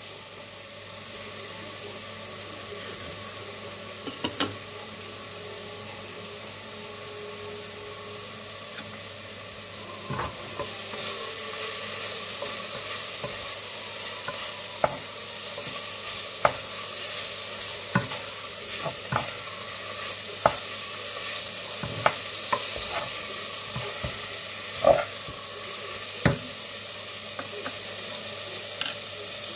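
Steady sizzle of chicken and garlic frying in a pan, a little louder about a third of the way in, with scattered short knocks and clicks of utensils on a wooden chopping board.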